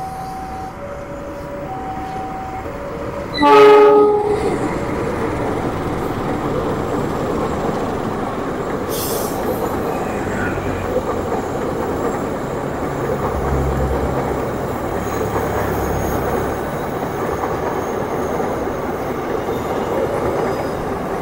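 A level crossing warning alarm sounds two alternating tones. About three and a half seconds in, a train horn gives one short, loud blast. The Papandayan passenger train then runs past with a steady rumble of wheels on the rails.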